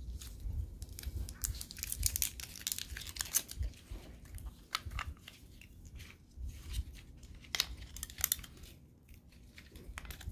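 Batteries being fitted into a plastic bed remote control: scattered plastic clicks and handling noise from the remote's battery compartment, with crinkling and tearing of packaging, busiest in the first few seconds.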